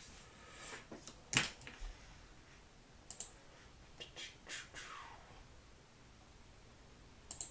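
A few scattered clicks of typing on a computer keyboard, with one brief swish.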